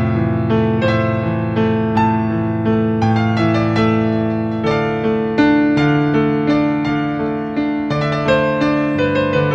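Piano music: a steady flow of struck notes over held low notes.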